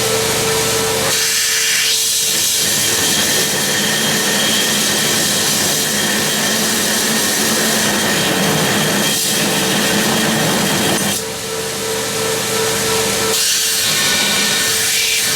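Power grinder grinding a blunt diamond point onto the tip of a forged steel shovel: a loud, steady grinding noise over a steady motor whine, easing off briefly about eleven seconds in.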